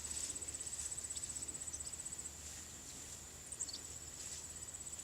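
A high, thin insect trill made of fast, even pulses. It breaks off about two seconds in and starts again near the end, with a few faint short chirps from other small animals around it.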